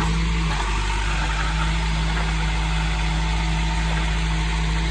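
Diesel engine of heavy earthmoving equipment running steadily at a constant pitch.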